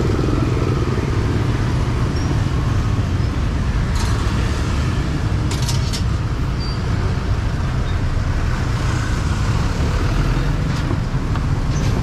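Steady low rumble of street traffic with motorbikes going by, with a few sharp clicks about four and six seconds in.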